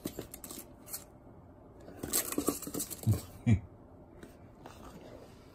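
Light taps and a few soft thumps from a Shiba Inu puppy's paws as it scampers across the floor and play mat, busiest about two to three and a half seconds in.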